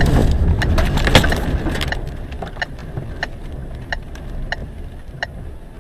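Storm wind buffeting the vehicle, with rain and bits of debris rattling against the windshield; the rumble eases after about two seconds. Sharp ticks then come at a steady pace, about one every two-thirds of a second.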